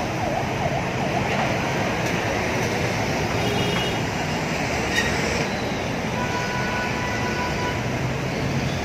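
Dense road traffic: engines and tyres of slow-moving cars, taxis and trucks. A siren's fast warble fades out about a second in.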